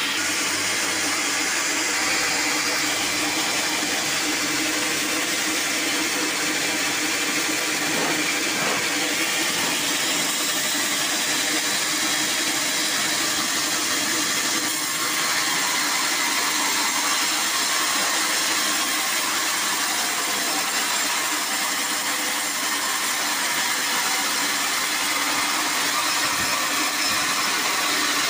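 Band sawmill running steadily, with a continuous loud mechanical noise; toward the end its blade is sawing through a hard acacia log.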